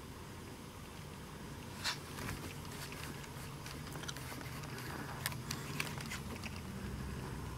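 Low steady hum with scattered faint clicks and knocks; the loudest click is about two seconds in and a few more come about five to six seconds in.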